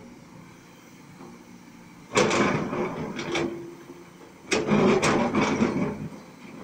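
Kobelco 210 excavator's bucket digging into rocky soil: two loud spells of scraping and grinding earth and stone, the first about two seconds in and the second about four and a half seconds in, with the machine running in the background.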